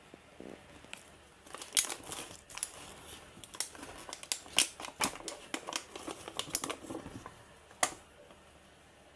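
Plastic cling film crinkling and crackling as it is pulled off and crumpled from a mushroom punnet, in an irregular run of sharp crackles.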